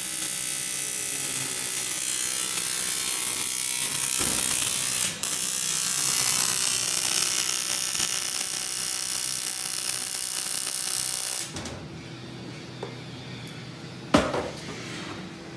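Electric welding arc buzzing and hissing steadily as it welds sheet metal, cutting off about three quarters of the way in. A single sharp knock follows near the end.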